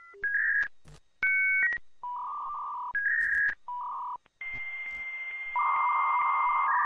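Telephone keypad dialing tones: a series of short electronic beeps at changing pitches, some sounding two tones at once. From about four and a half seconds they give way to a steady high tone over a hiss, with a second, lower tone joining near the end.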